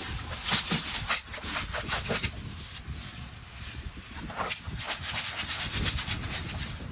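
Running water spraying and hissing over a batch of live crawfish as they are rinsed, with many quick clicks and rattles through it.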